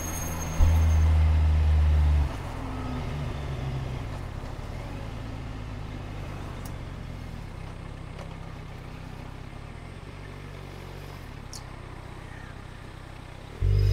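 Motorcycle engine heard from the rider's seat while riding through traffic. It is loud for about a second and a half, then drops to a quieter running note that eases slowly down, and jumps back up suddenly just before the end.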